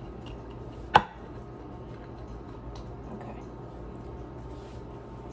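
A utensil or dish knocking once, sharply, against cookware about a second in, with a short ring. A few faint ticks follow, over a steady low kitchen hum.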